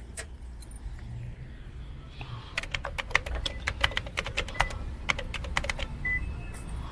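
A rapid, irregular run of sharp clicks, like keys being typed, for about three seconds starting about two and a half seconds in, over a low steady hum.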